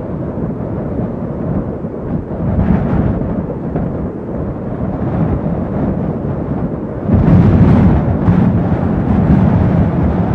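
Strong wind buffeting a GoPro's microphone on an exposed snowfield, a rough rumbling roar that rises and falls in gusts, with a stronger gust about seven seconds in.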